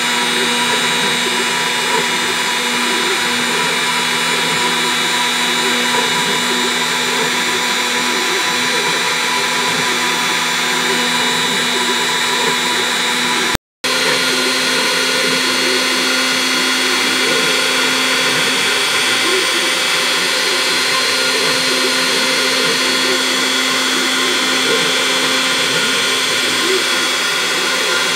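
CNC router spindle running steadily with a RotoZip bit, cutting a helical path down into the end grain of a pine block to make toy axle pins. The sound drops out for a moment about halfway through.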